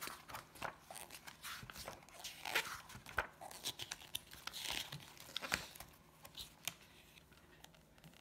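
Pages of a hardcover comic book being turned and handled by hand: quiet paper rustles and flicks, several in a row, thinning out to almost nothing near the end.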